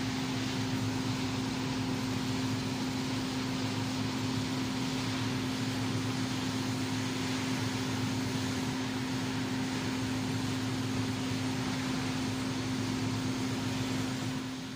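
TIG welding arc burning steadily: an even hiss over a constant low electrical hum, with no breaks.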